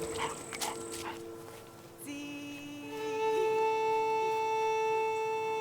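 Film score music: slow, sustained bowed-string chords. It thins out, then a new chord enters about two seconds in and a high note is held from about three seconds on.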